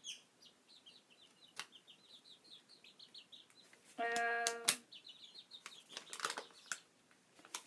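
Young chickens peeping in a quick run of soft, high chirps, with one short steady call about four seconds in. A paper letter being handled adds a few light clicks and rustles.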